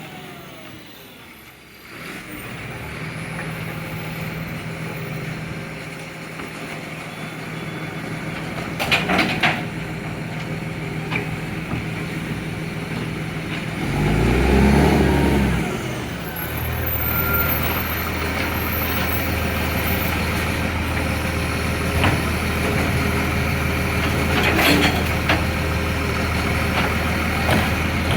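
Diesel engine of a recycling garbage truck with an exhaust leak, running steadily. There are short air hisses about nine seconds in and near the end. A loud low surge comes about halfway, and then the engine settles to a steady idle.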